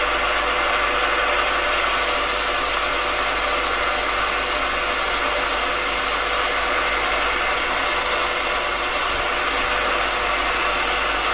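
AMA 714B mini lathe running under a steady whine while its tool takes a light 0.1 mm turning cut on a brass bar. A high hiss joins about two seconds in and stops near the end.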